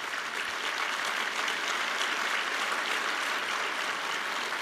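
Audience applauding, a crowd clapping steadily.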